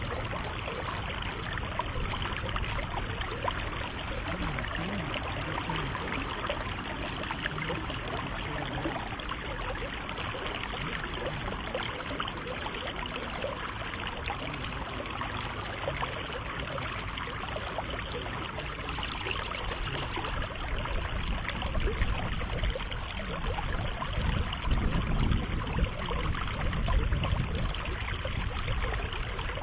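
River water running steadily over the streambed, an even rushing hiss. Louder low rumbling bumps come in over it near the end.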